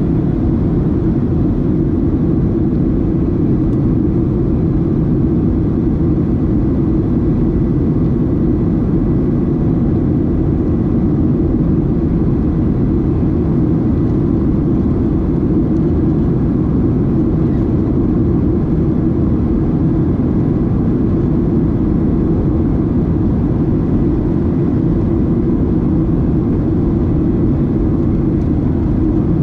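Steady cabin roar of a Boeing 737-700 in flight: engine and airflow noise heard from inside the cabin, loud and unchanging, with most of its weight in the low range.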